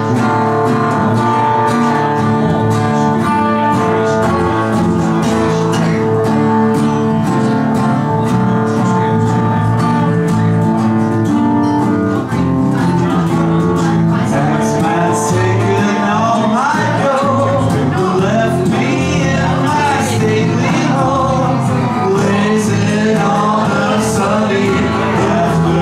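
A small live band plays a song on acoustic and electric guitars, and a man's voice comes in singing about halfway through.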